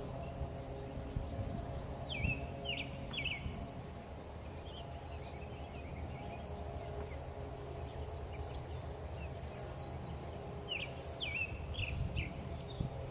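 A songbird sings a short phrase of quick chirping, whistled notes twice, about 2 seconds in and again near the end, over a steady low background rumble.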